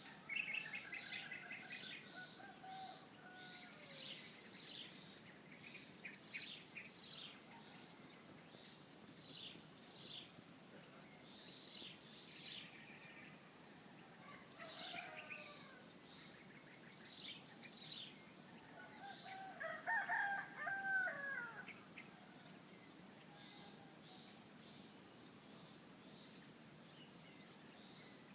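Rooster crowing once, loudest about 20 s in, over repeated short chirps of small birds. A steady high-pitched buzz runs underneath.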